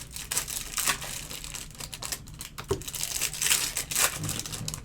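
Baseball card pack wrappers crinkling and being torn open by hand, with irregular crackles.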